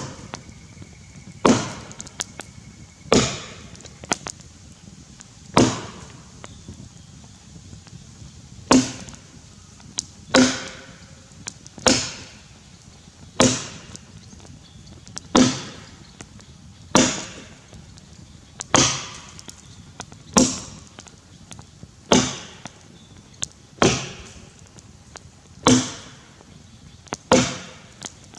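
Tassie pattern axe chopping into a Grey Gum log while bucking it, steady single blows about every one and a half to two seconds, with a longer pause about six seconds in.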